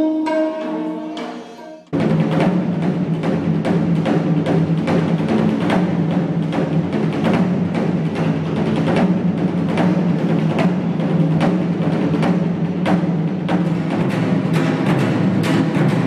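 Korean traditional ensemble music: a sustained melodic line fades out, then about two seconds in an abrupt cut brings in loud, dense drumming with a steady beat of strikes.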